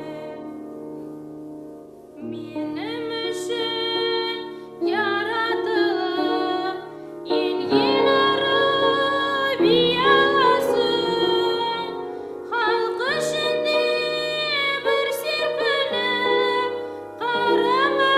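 A song: a woman's voice singing phrase after phrase over steady instrumental accompaniment.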